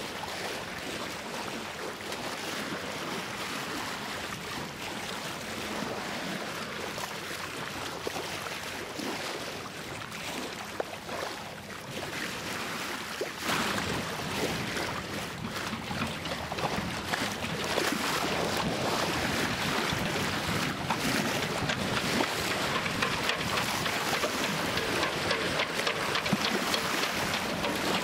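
Wind buffeting the microphone over the rush and slap of choppy sea water, growing louder about halfway through.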